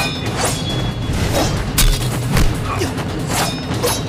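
Dramatic background music under sword-fight sound effects: a quick run of blade swishes and strikes, with two heavy booms about two seconds in.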